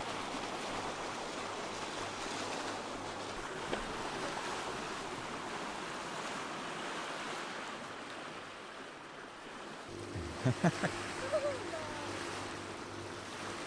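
Water rushing and splashing along the hull of a moving sailboat, with wind. About ten seconds in a low steady hum joins, along with a few short knocks.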